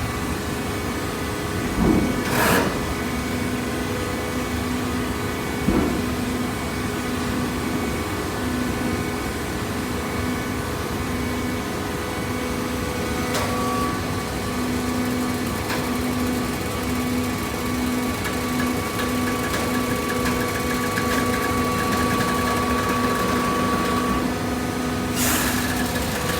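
Hydraulic waste-paper baler running: a steady machine hum from its hydraulic pump and motor, with a few short knocks near the start and once near the end, and a higher whine that joins about halfway through and holds for some ten seconds.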